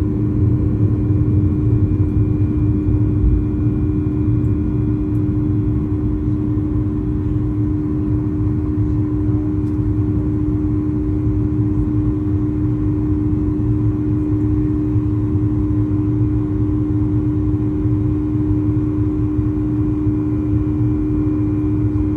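Steady drone of a Boeing 737's jet engines and airflow heard inside the passenger cabin, with a constant hum over a low rumble that does not change.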